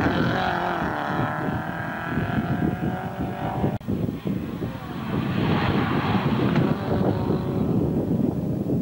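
Hatchback race car's engine running at high revs as it passes close by, its pitch falling as it moves away. After an abrupt cut, another race car's engine grows louder as it climbs toward the listener.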